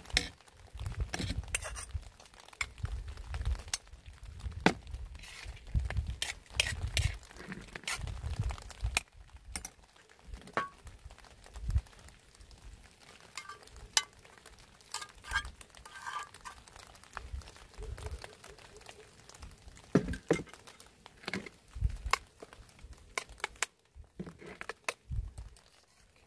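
Someone eating a camp meal of rice close to the microphone: scattered clinks and taps of a utensil on a plate, light crinkling and handling thumps.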